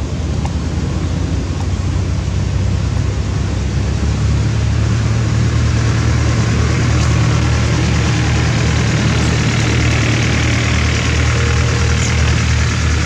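A motor vehicle's engine running with a steady low hum, growing louder about four seconds in.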